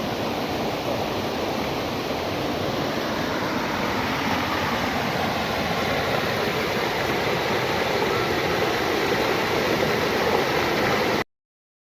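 Waterfall: a steady rush of heavily flowing water that cuts off suddenly near the end.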